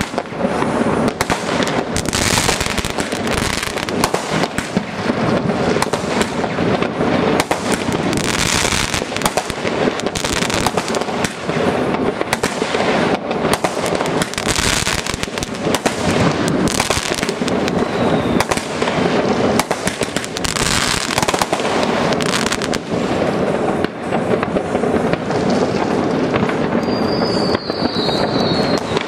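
Fireworks going off all over a city: a dense, unbroken mix of bangs, crackles and rocket hiss, near and far, with a short high whistle near the end.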